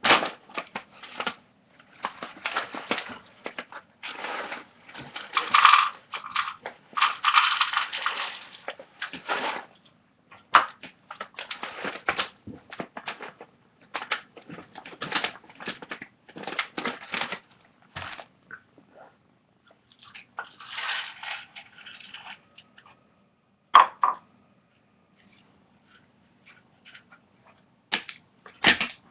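Cat crunching and chewing ferret food: irregular runs of crackly crunches broken by short pauses.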